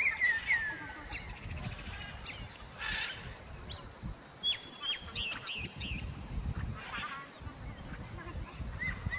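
Birds calling: several short chirps and falling whistles, some close together, with a brief steady whistle near the end, over a low rumble.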